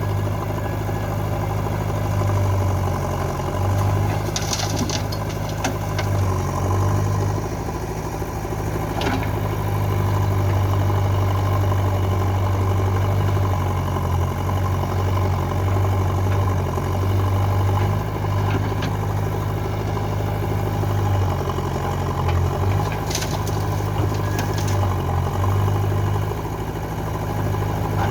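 Diesel engine of a backhoe loader or tractor running steadily at idle, its low note shifting slightly now and then. There are a few sharp clicks or knocks, about five and nine seconds in and again near the end.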